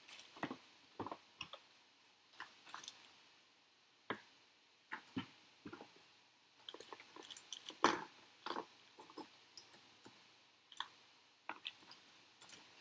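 Plastic component bags crinkling and small parts tapping against a plastic storage case as they are packed back into its compartments: irregular light clicks and rustles, the sharpest about eight seconds in.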